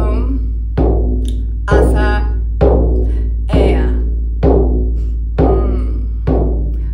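Large frame drum struck with a felt-headed mallet in a slow, steady beat, about one deep stroke a second, each ringing on until the next. A woman's voice chants drawn-out tones over the drumming.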